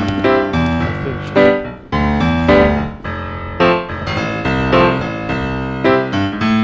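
Background music: piano notes struck one after another, each ringing and fading.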